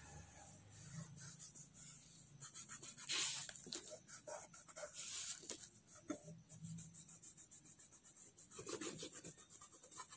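Fingertips rubbing over a coloured drawing on paper, blending the shades in short, irregular strokes.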